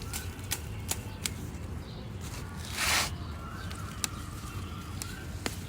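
A few sharp, irregular clicks and one short burst of hiss about three seconds in, with birds chirping faintly in the background.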